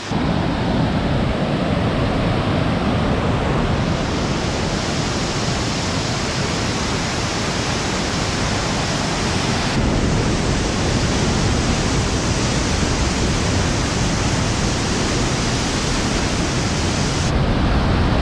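Fast whitewater river rushing over rocks close by, a loud, steady wash of water noise. Its tone changes abruptly about ten and about seventeen seconds in.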